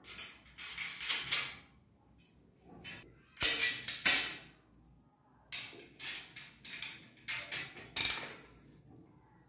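Irregular clicks, knocks and short rattles of metal bicycle parts being handled as a rear derailleur is fitted at the frame's rear dropout beside the freewheel cluster.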